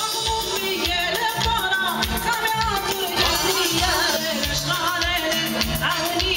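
Live Assyrian dance music: a woman singing into a microphone, amplified over electronic keyboard and drums, with a steady beat of about two pulses a second.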